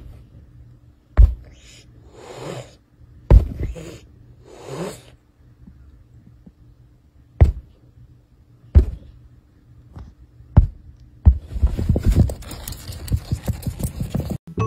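A hand slapping the felt dust cover on the underside of a piece of furniture: six sharp thumps spread through the clip, with short rustling scrapes on the fabric between them and a stretch of fast scratching and rustling near the end.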